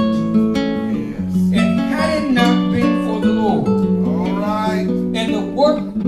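Church music: steady held chords on a guitar-like instrument, with a voice gliding up and down over it.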